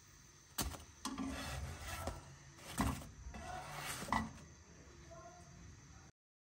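Spatula tongs scraping and tapping against a nonstick frying pan as small cooked flatbreads are lifted off it, with a few sharp clicks of the utensil on the pan. The sound cuts off abruptly near the end.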